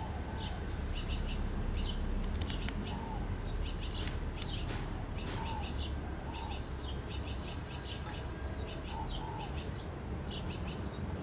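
Yellow-headed amazon parrot crunching a piece of carrot with its beak: bursts of short, crisp clicks, with two sharper snaps about four seconds in. Faint short chirps come now and then.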